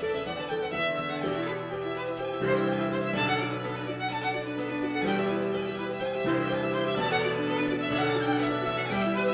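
Violin and digital piano playing a duet: a fiddle melody of many short notes over held piano chords, the bass notes changing every one to two seconds.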